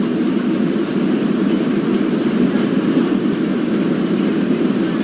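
Steady drone of an airliner cabin: engine and airflow noise from the aircraft, even and unchanging, with the weight in the low-mid range.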